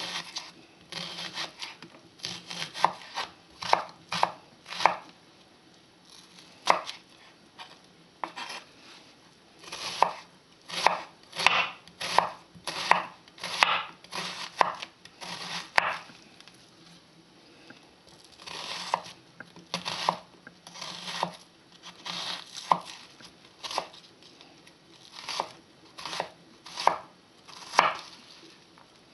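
Kitchen knife slicing an onion into half-rings on a wooden cutting board: a series of sharp knife strokes crunching through the onion and knocking on the board, about one or two a second, with a couple of short pauses.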